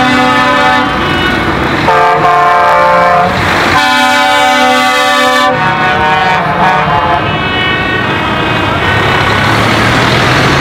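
Air horns on passing trucks sounding long, chord-like blasts one after another, the pitch shifting every second or two, over the low running of the trucks' engines.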